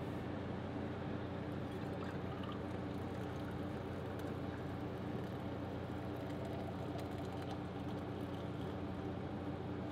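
Liquid poured in a steady stream from a stainless pot into an insulated bottle, over the constant hum of a truck camper's air-conditioning unit running.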